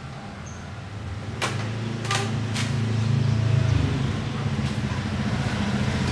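A motor vehicle's engine running close by: a steady low hum that grows louder about a second and a half in and peaks around the middle. A few sharp clicks fall over it.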